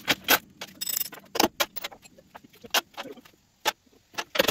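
Irregular metallic clinks and knocks of tools on steel at the truck's rear bumper and hitch as they are unbolted, a handful of sharp strikes with quiet gaps between.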